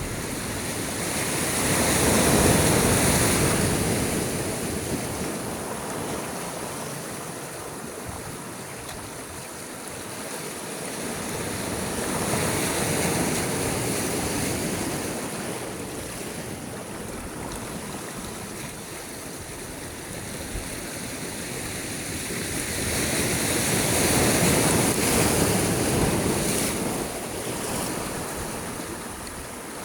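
Sea waves breaking and washing up the shore, three surges about eleven seconds apart, each rising and falling away into a steady hiss of surf.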